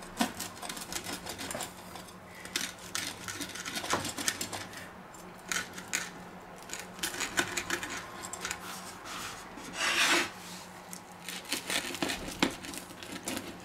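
Moesta pizza cutter wheel rolling and scraping through a baked pizza onto a wooden board, in repeated irregular cutting strokes. The loudest scrape comes about ten seconds in.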